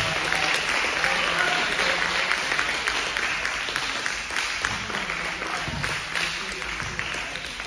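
Applause from a small group of players at the end of a volleyball match, with voices mixed in; it starts loud and gradually tails off.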